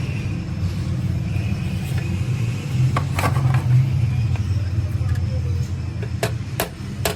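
Workshop machinery running with a steady low rumble, with a few sharp metallic clicks or knocks about three seconds in and again near the end.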